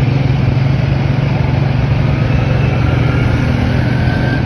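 An engine or motor running steadily with a loud, rough drone.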